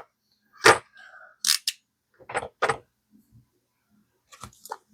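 Quick-change crimping tool and its interchangeable jaws being handled: a handful of separate sharp clicks and knocks, the loudest about a second in.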